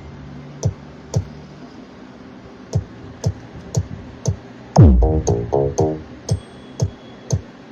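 Electronic dance remix played over a mobile disco sound system. Sparse sharp drum-machine hits give way, about five seconds in, to a loud deep bass drop falling in pitch, followed by quick stuttering synth notes.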